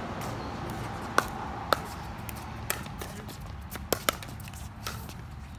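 Pickleball rally: hard paddles hitting a plastic pickleball in a run of sharp pops at uneven intervals, about six in all, the loudest two close together a little after the first second. A steady low background hum lies under them.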